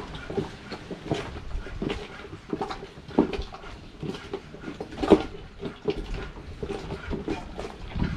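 An octopus being kneaded and rubbed by hand in a plastic bucket to work off its slime: irregular wet squelches and slaps with knocks against the bucket, the loudest about five seconds in.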